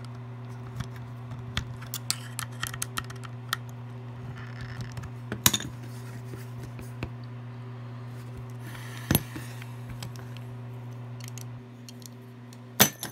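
Light clicks and taps of a screwdriver and small metal and plastic parts being handled as a small butane torch is put back together, with a few sharper knocks, the loudest near the end. A steady low hum runs underneath.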